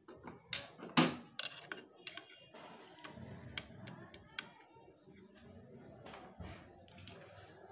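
Sharp metallic clicks and taps from a sewing machine's shuttle (bobbin hook) assembly being fitted and adjusted by hand and with a screwdriver, the loudest about a second in.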